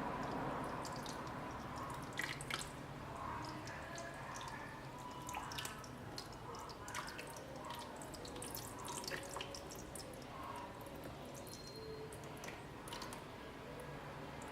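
Wet dripping and squishing of liquid slime ingredients, with many irregular small clicks and pops.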